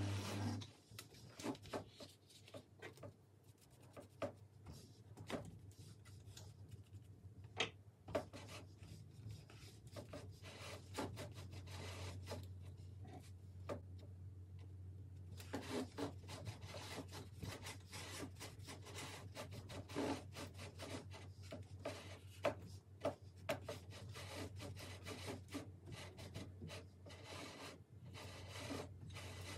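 Binding twine being wound by hand onto a cricket bat handle: faint, irregular small rubs and ticks as the twine is pulled tight over the handle. The sounds thin out for a few seconds midway.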